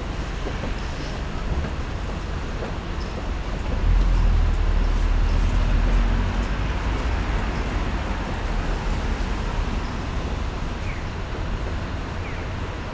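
Low, steady rumble of distant train and road traffic, swelling for a couple of seconds about four seconds in.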